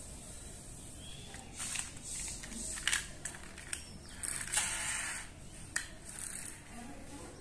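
Small plastic toy bus's pull-back motor whirring and clicking as it is dragged back across a smooth floor in several short strokes, the longest about halfway through.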